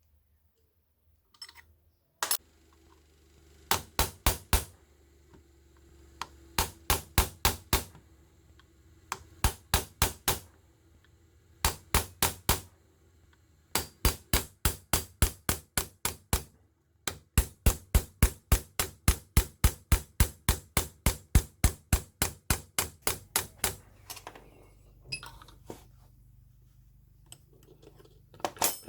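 Rapid hammer blows in short bursts of several strikes, about three to four a second, with brief pauses between bursts.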